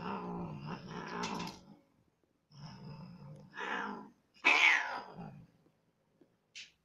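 A domestic cat yowling during mating: three drawn-out cries, the third the loudest.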